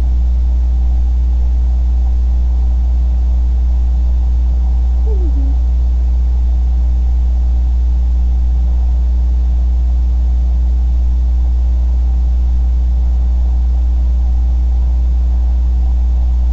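A steady, loud low hum that does not change, with a faint short falling tone about five seconds in.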